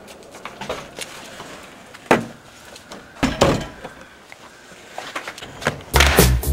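Scattered door and handling clunks over low room noise, the loudest about two seconds in and just after three seconds. Near the end, loud music with a heavy beat cuts in.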